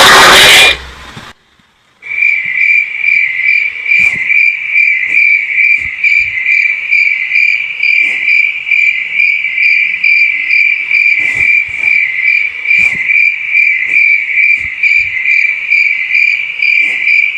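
Stock cricket chirping sound effect: a high, steadily pulsing chirp that starts about two seconds in. It follows a brief, very loud distorted blast at the very start.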